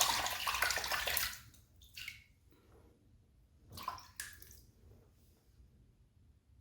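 Tap water running and splashing into a sink, which stops about a second and a half in, followed by two short splashes.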